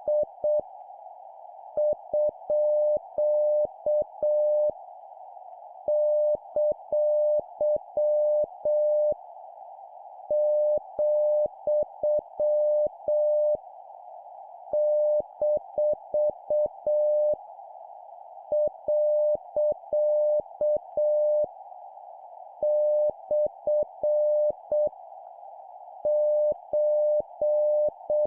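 Morse code practice tone, a single steady beep keyed on and off in dots and dashes, sending punctuation characters at 7 words per minute, one character group about every second and a half. A constant band of hiss runs underneath, like a radio receiver's noise.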